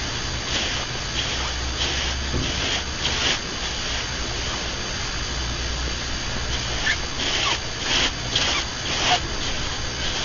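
A sleeping rabbit snoring: short, hissy nasal breaths at irregular intervals, a few with a faint squeak, over a steady low hum.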